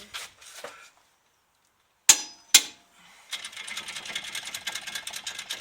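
Two sharp metal clanks about two seconds in, then a fast, continuous ratcheting click from a hand ratchet wrench spinning a bolt on the truck's front hub.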